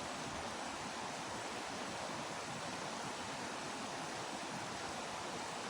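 Steady rush of flowing stream water: an even hiss with no separate splashes or knocks.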